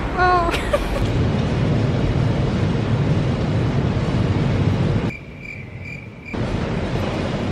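Steady low rumbling noise of a subway station platform, with a short voice-like sound at the start. About five seconds in it drops for a second to a quieter stretch with three faint, even, high beeps, then the rumble returns.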